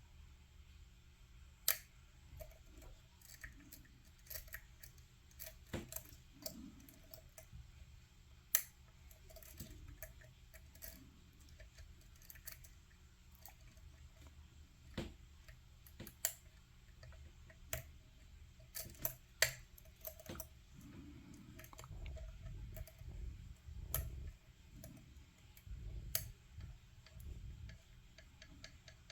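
Lock pick clicking and tapping on the pins inside an Assa 700 pin tumbler lock: irregular sharp ticks a second or two apart, as pins are float-picked through the core's counter milling while the lock sits in a false set.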